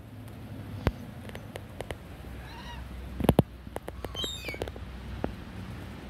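A flock of feral pigeons with scattered sharp wing claps as birds take off and land, the loudest a little after three seconds. A few short, high, wavering bird calls come about halfway through and again past four seconds, over a steady low hum.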